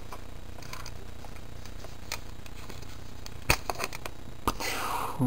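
A few small sharp plastic clicks from a toy helicopter being handled, two close together about three and a half seconds in, as its snap-in plastic missiles are worked loose from their mounts. A brief rustle of plastic follows near the end.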